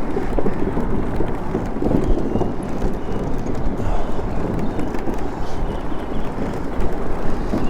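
Wind gusting over the microphone while riding a bicycle, a dense, uneven low rumble with no let-up.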